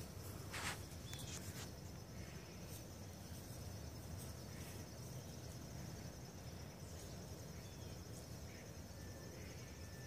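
Faint outdoor ambience: insects trilling steadily at a high pitch over a low background rumble, with one soft click about half a second in.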